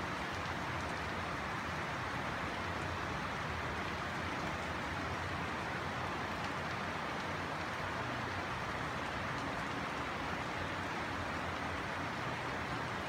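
Steady rain falling, an even hiss that holds constant throughout.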